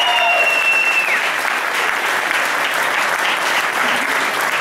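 Audience applauding steadily, with a long drawn-out shout in the first second.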